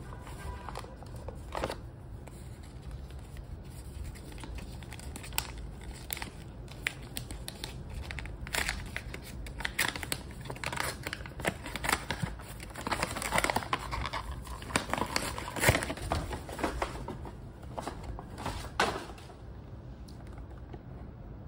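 White wrapping paper crinkling and rustling as it is unfolded by hand from around a box, with many sharp crackles that are busiest in the middle and die away near the end.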